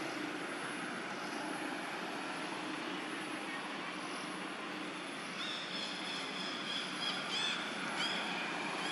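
Steady outdoor background hum. From about halfway through, thin high piping calls come in, a few of them quick rising-and-falling chirps.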